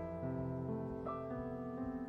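Jazz piano playing slow, sustained chords. New chords are struck about a quarter second in and again around a second in, and the notes are left ringing, with no drums.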